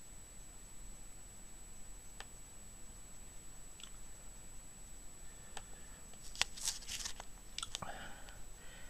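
Computer mouse clicks: a few single clicks spread apart, then a quicker run of clicks about six to eight seconds in, heard faintly over room hiss and a steady high whine.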